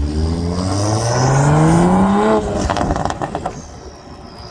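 Toyota Supra's turbocharged inline-six, with a catless downpipe on the stock exhaust, accelerating hard with its note rising for a couple of seconds. The note then breaks off suddenly into a quick run of crackles, and the sound fades as the car pulls away.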